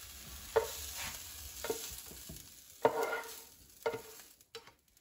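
A spatula scraping sautéed broccoli out of a frying pan onto a plate: about five short scrapes and knocks, over a sizzle that dies away as the pan, just taken off the heat, cools.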